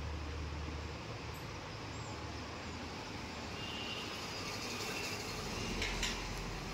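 Steady background noise with a low rumble dying away in the first second, and a short clatter about six seconds in.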